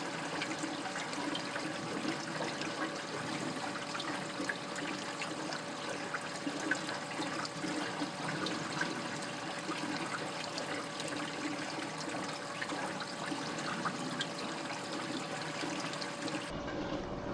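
Water trickling and splashing steadily as it drains down through the coarse filter media into an aquarium sump, with a steady hum under it. Near the end the sound shifts, with more low rumble coming in.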